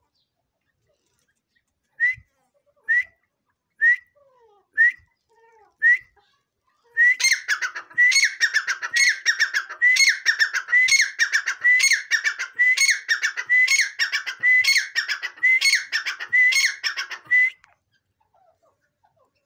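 Grey francolin (dakhni teetar) calling. It starts with five single call notes about a second apart, then breaks into a fast run of repeated ringing phrases, about two a second, for about ten seconds before stopping.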